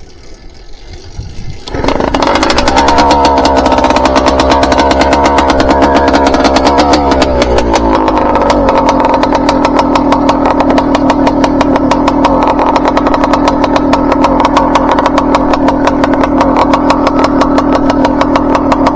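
A motorized bicycle's small two-stroke engine catches about two seconds in on a cold start. It runs at a fast, wavering idle, then settles to a steady, lower idle about eight seconds in. It is still in break-in and jetted very rich.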